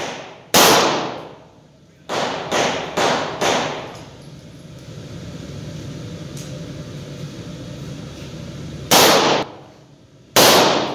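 Handgun shots at a shooting range: one shot, then four in quick succession about half a second apart, then a pause of several seconds, then two more shots near the end.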